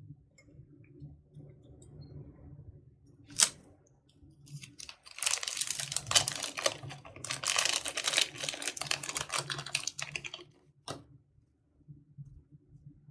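Close-up handling sounds: a sharp click, then about five seconds of dense crackling made of many quick clicks, then another single click.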